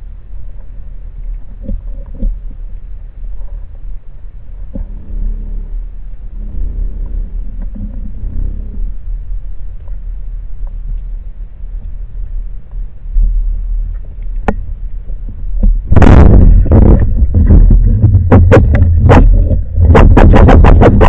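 Low steady underwater rumble of water moving against a camera housing on a speargun during a dive. About three quarters of the way through it turns abruptly loud, with a run of sharp knocks and clatter.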